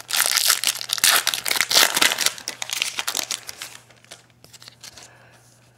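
Crinkling and tearing of a trading-card pack wrapper as it is ripped open and handled, dense for about the first three and a half seconds, then dying down to faint rustling.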